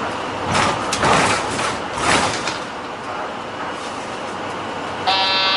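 Route-bus cabin noise while running, with two short hissing bursts about half a second and two seconds in. Near the end a multi-tone electronic chime starts, the cue for the bus's automatic stop announcement.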